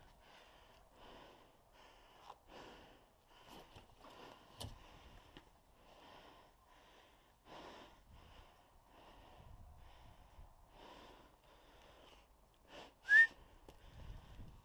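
A person's breathing in an even rhythm, with a short, loud whistle-like squeal about thirteen seconds in.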